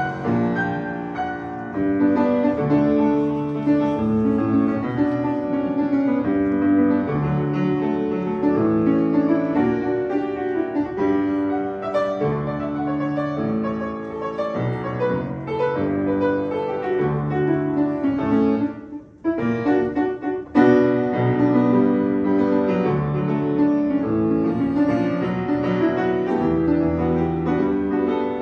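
Solo piano music, an original score playing as a soundtrack, with a brief break about two-thirds of the way through.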